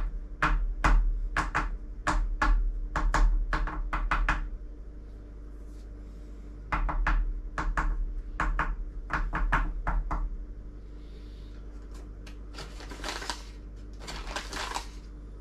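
Sharp knocks, about two a second in two runs, of a shotgun shell being tapped on a wooden table to settle the starch and shot inside it. Near the end come two brief rustling scrapes.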